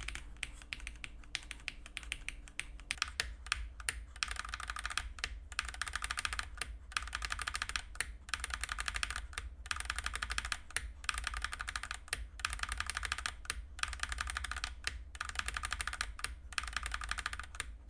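Fantech MAXFIT61 mechanical keyboard with Outemu red switches and stock keycaps, its keys hammered in rapid runs of keystrokes broken by short pauses. For the first few seconds it is the modded board. From about four seconds in it is the unmodded board, whose clacking is louder and brighter.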